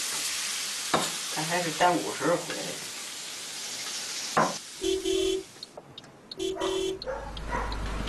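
Stir-fried food sizzling in a wok as a metal spatula scrapes it out onto a plate, with a few sharp clicks of the spatula. It is followed by two short car-horn beeps, each about half a second, and then a low engine rumble.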